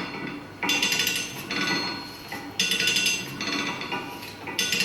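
Repeated metallic clanks, each followed by about a second of ringing, a few strikes spaced one to two seconds apart.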